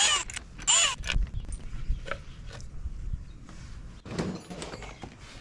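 A cordless drill-driver runs in two short bursts near the start, its pitch rising and falling as it backs out the screws holding a plastic engine case protector. Low knocks of parts being handled follow, with a louder clatter about four seconds in.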